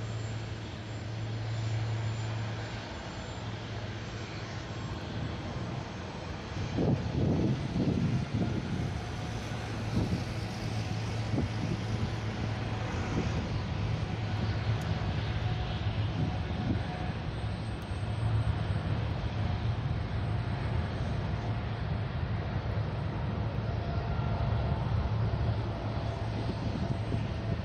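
Cathay Dragon Airbus A330-300 on final approach with landing gear down, its jet engines a steady rumble that grows gradually louder as it comes closer.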